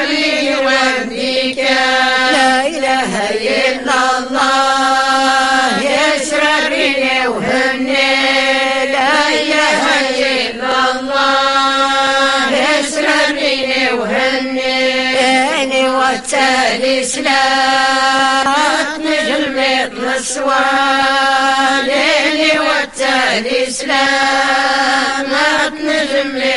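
Women's choir chanting Moroccan Sufi madih, religious praise songs, in unison: sliding, ornamented sung lines over a steadily held low note.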